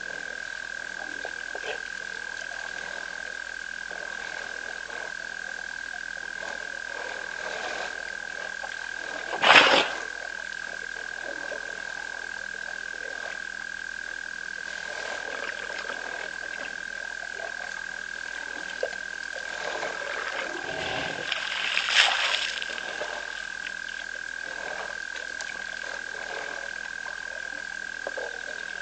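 Frogs calling at a waterhole at night: a steady high-pitched chorus that never lets up. A short loud sound breaks in about ten seconds in, and another builds up and peaks around twenty-two seconds.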